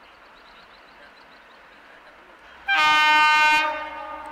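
Horn of a WAG-7 electric locomotive sounding one loud blast of about a second, about two-thirds of the way in, then fading away.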